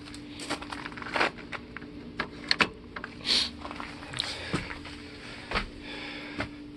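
Scattered light clicks and crackling rustles of hands handling the motorhome's lower body trim strip, over a faint steady hum.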